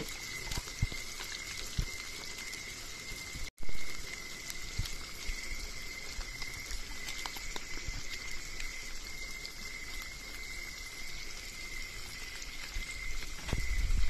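Sliced hot dogs and spaghetti sauce sizzling in hot oil in a wok: a steady crackling fry with small pops, over a steady high-pitched whine. About three and a half seconds in, the sound cuts out for an instant and then comes back with a loud bump; a low thump follows near the end.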